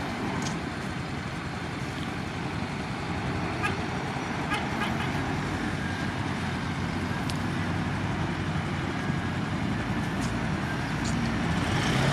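Shantui bulldozer's diesel engine running steadily under load, with a few sharp metallic clicks scattered through it; the engine gets louder near the end.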